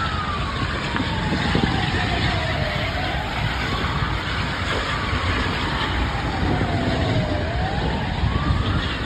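Fire engine siren wailing, its pitch rising and falling slowly, a few seconds to each sweep, over steady street noise.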